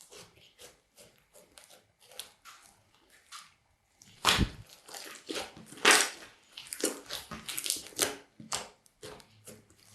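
Slime being mixed and squeezed: irregular squishy clicks and crackling pops, soft at first, then louder and busier from about four seconds in, starting with a heavy squelch.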